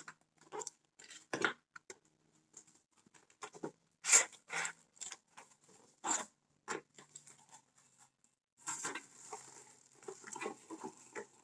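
Gift wrapping being torn and rustled open by hand, in irregular crackling bursts.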